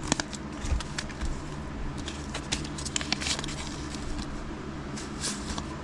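A trading card pack's wrapper being torn open and crinkled by hand as the cards inside are slid out: irregular crackling and rustling, busiest in the first three seconds or so.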